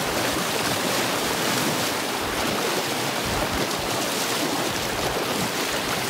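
Swift creek running high with spring snowmelt, a steady rush of fast water.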